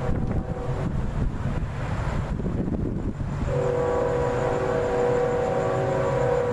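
A train horn blows a long held chord of several notes, starting about halfway through, over a steady low rumble.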